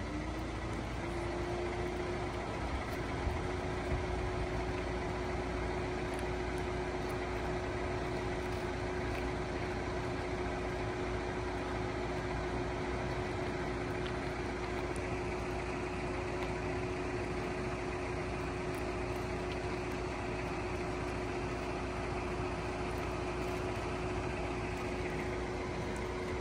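A machine running steadily: a low rumble under an even hum, with one constant mid-pitched whine that rises slightly in the first second and then holds level.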